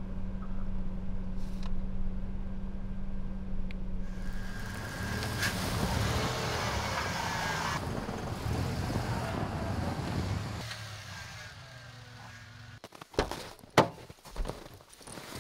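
Pickup truck engine running while the truck is repositioned, with a rushing noise for a few seconds in the middle. The engine hum goes quiet about ten and a half seconds in, followed by a few sharp knocks near the end.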